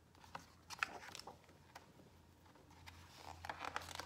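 Faint paper rustling and soft crackles as a picture book's page is turned and the book is handled, in two clusters: about a second in, and again near the end.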